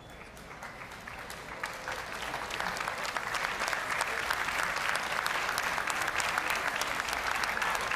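Audience applause with many hands clapping, swelling over the first few seconds and then holding steady.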